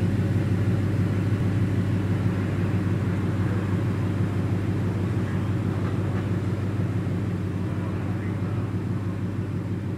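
Steady low drone of an engine running, with faint voices over it; it slowly fades.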